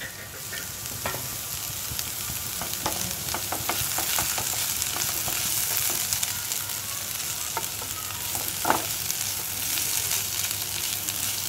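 Sliced onions and dried mackerel sizzling in a hot pan as they are stirred with a wooden spatula, with a steady hiss and scattered clicks and scrapes of the spatula against the pan, one louder knock about three-quarters of the way through.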